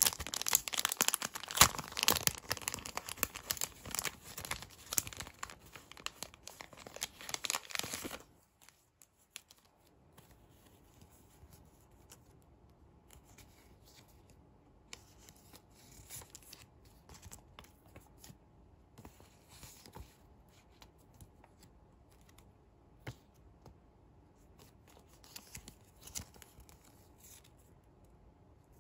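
Clear plastic bag crinkling and being torn open, a loud dense crackling that stops abruptly about eight seconds in. After that only faint rustles and light taps as the paper toy banknotes from the bag are handled.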